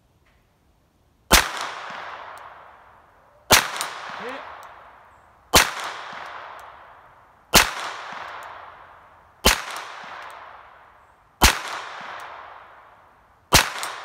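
Astra Cub pocket pistol firing seven .22 Short rounds, one about every two seconds. Each shot is a sharp crack followed by a long echo that dies away.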